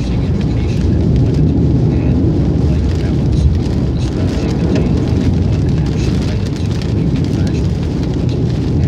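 Steady tyre and engine rumble heard inside a car's cabin at highway speed on a wet road, with rain spattering on the windshield.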